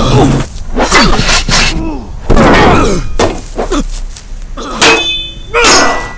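Film fight sound effects: a string of sharp blows and crashes of weapons striking shields, mixed with men's grunts and shouts of effort, one strike about five seconds in ringing briefly.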